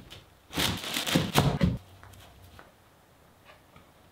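Large plywood rings knocking and clattering together as one is set down onto a stack of glued rings. It is a cluster of wooden knocks lasting about a second, starting about half a second in.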